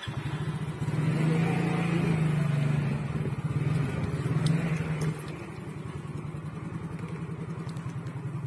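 Small motorcycle engine running close by with a fast, even pulse. It is louder for the first few seconds, then settles to a steady idle.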